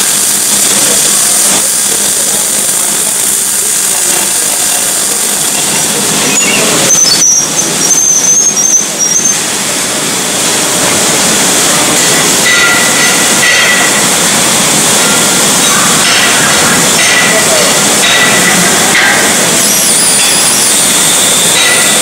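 Electric arc welding on a steel pipe joint: the arc's steady, loud crackling hiss, with a brief high whine about seven seconds in.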